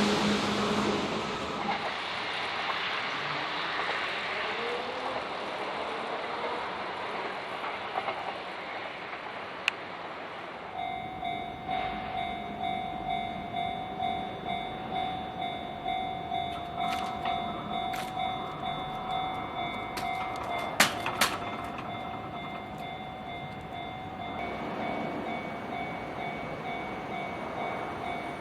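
An electric train's running noise fading away after it crosses the level crossing. About eleven seconds in, the level crossing's warning bell starts ringing in a steady clang-clang, about one and a half strokes a second, with a couple of sharp clicks partway through. Near the end the rumble of the next train grows as it approaches.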